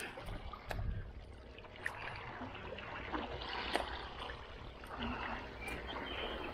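Sea water washing and trickling over shore rocks, swelling and easing as small waves come in, with a few light clicks.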